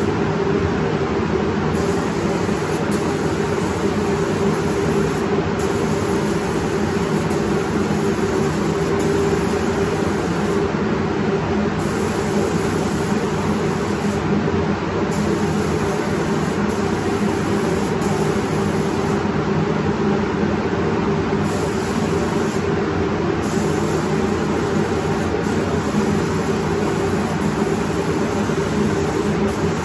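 Compressed-air paint spray gun hissing as paint is sprayed onto a car's rear quarter panel, over the steady hum of ventilation fans.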